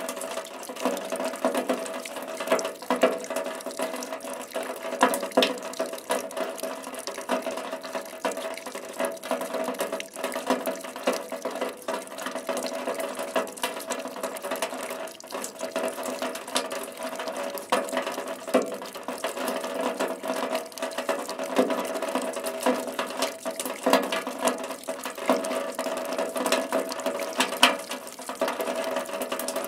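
Rain falling: a steady wash of water with a dense, irregular spatter of individual drops striking.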